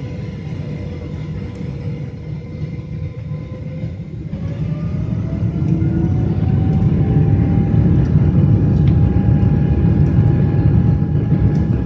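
Boeing 777-300 turbofan engines spooling up to take-off thrust, heard from inside the cabin. A steady low rumble carries a whine that rises about four seconds in and then holds, and the sound grows louder as the take-off roll begins.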